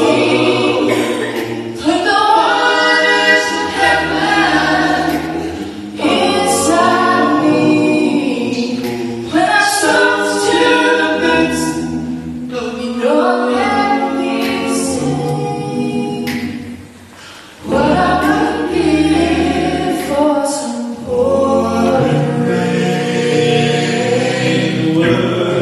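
Mixed vocal quartet, one woman and three men, singing a cappella in close harmony through microphones, in sung phrases with short breaths between them and a brief pause about 17 seconds in.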